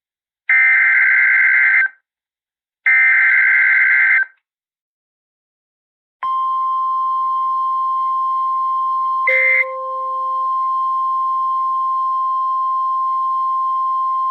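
Emergency Alert System SAME header: two digital data bursts of about a second and a half each, then a pause of about two seconds. About six seconds in, the National Weather Service's steady 1050 Hz warning alarm tone starts and holds, signalling that a warning message follows. A few seconds into the tone, a brief crackle and a short lower blip break in.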